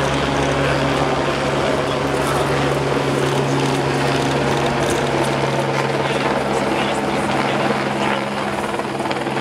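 A steady engine drone with a constant low hum, holding an even level throughout.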